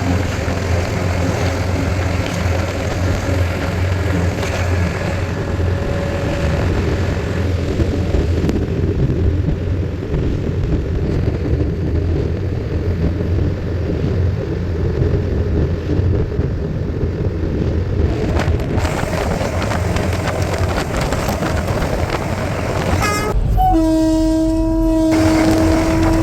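Train running on a conventional line, heard from on board: a steady low rumble with faint steady tones a few seconds in. Near the end a loud train horn sounds, held for about three seconds, as part of a horn salute exchanged with a passing high-speed train.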